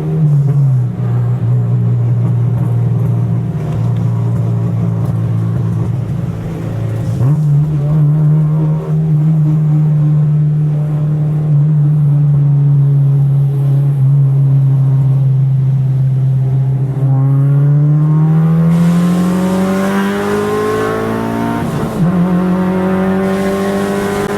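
Car engine running at steady revs, then accelerating hard with a climbing pitch from about 17 s in, a quick gear change about 22 s in, and pulling up through the revs again.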